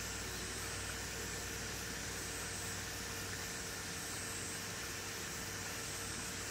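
Steady background hiss with a low hum underneath and a faint high tone that fades in and out about every second and a half; no distinct events.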